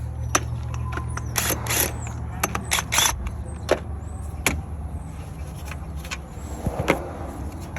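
Metal hand tools clicking and clanking at irregular intervals: a 14 mm socket wrench working loose the bolts of the right-side engine mount. A low steady hum runs underneath for the first few seconds.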